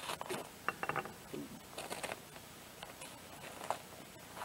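Knife slitting open the top of a padded paper mailer, with short irregular bursts of cutting, scraping and crinkling paper. A single sharp tap near the end as the knife is set down on the wooden table.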